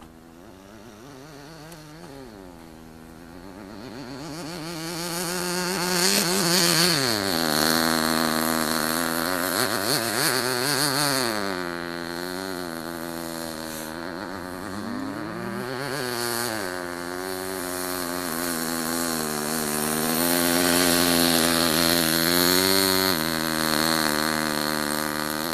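ENYA 19 two-stroke glow engine of a 1/8-scale RC buggy running under throttle, its pitch rising and falling again and again as it revs up and backs off. Faint at first, it grows much louder from about five seconds in as the buggy comes closer.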